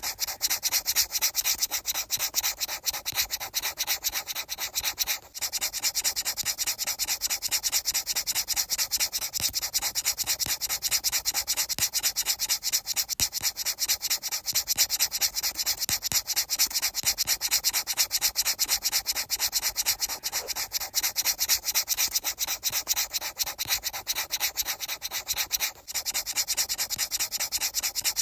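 Fast, even rubbing or scratching strokes, many per second and very regular, that break off briefly twice.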